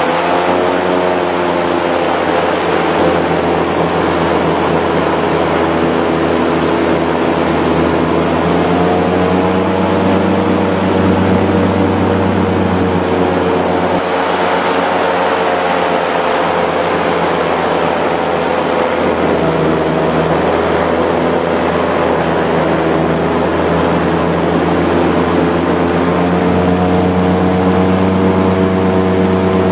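Airboat engine and propeller running at speed, a loud steady drone whose pitch rises and falls several times as the revs change, over a rushing noise of air and water.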